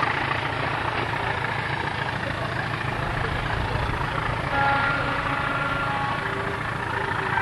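Diesel-hauled passenger train rolling away: a steady rumble of the coaches' wheels on the rails with the English Electric Class 20 locomotive's engine running. About halfway through the sound swells a little and thin, high, steady tones join in.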